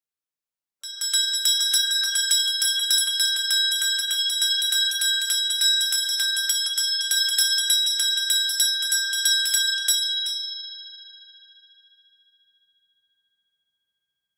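A bell rung rapidly and continuously, its clapper striking many times a second, starting about a second in. The strikes stop suddenly after about nine seconds, and the bell's tone rings on and fades out over the next couple of seconds.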